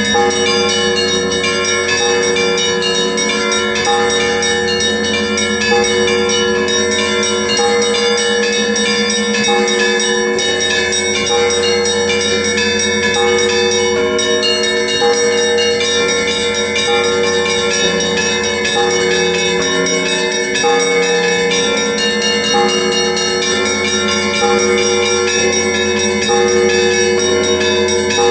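Russian Orthodox monastery bells rung together in a continuous peal: many bells of different pitches struck in quick succession over long-ringing deeper tones.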